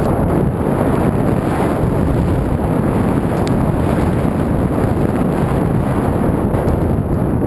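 Steady wind rumble on the microphone of a camera skiing downhill, mixed with the hiss of skis running through snow.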